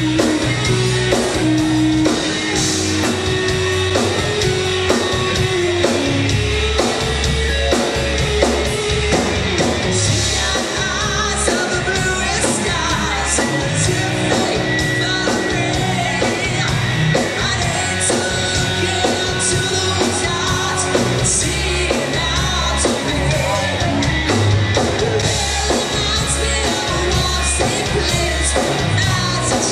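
Live glam-rock band playing: electric guitar, bass guitar and a drum kit, with a lead singer's vocals over the top.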